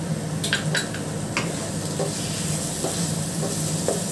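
Wooden spatula stirring and scraping grated paneer around a non-stick pan while the mixture sizzles, with a few light clicks of the spatula against the pan in the first second and a half.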